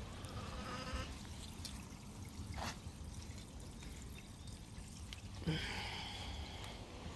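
Small pond fountain jet splashing and trickling back into a garden pond, a light, steady water sound. Brief higher-pitched calls come about a second in and again about five and a half seconds in.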